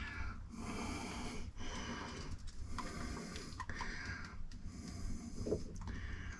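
A person's rhythmic breathing, a hissing in and out about once a second.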